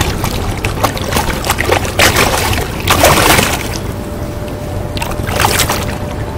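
Shallow river rushing over rocks, with a steady low rumble and a few louder surges of noise.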